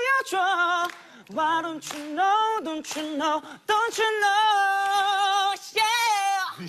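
A man singing a cappella in a high tenor voice: a few phrases of held notes with vibrato, broken by short pauses, with one long held note in the middle and the words "don't you know, yeah".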